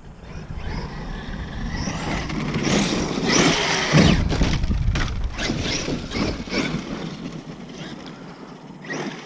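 Large 8S electric RC truck speeding up, its brushless motor whine rising, with a heavy thump about four seconds in, then tyres scrabbling over dirt as it fades off.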